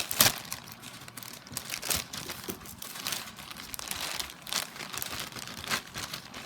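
Packaging crinkling and crackling in irregular sharp bursts as a taped bag is pulled open by hand, loudest right at the start.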